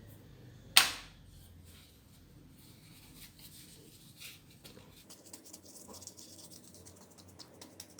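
Hands working on a plastic TV remote control: one sharp click about a second in, then scattered light scratches and a quick run of small clicks in the second half.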